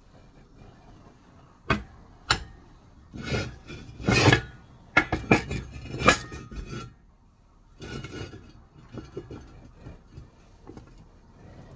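Steel plate clanking and scraping against a cast-iron bench vise as it is handled and bent, the corner heated with an oxypropane torch. Two sharp clanks near the start, then a run of scraping and clattering, loudest about four and six seconds in, dying to lighter rattles.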